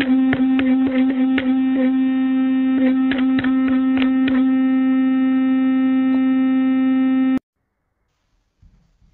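Electric toothbrush buzzing steadily at one low pitch, with irregular clicks and knocks over the first few seconds as a kitten paws at it. The buzz cuts off suddenly about seven seconds in.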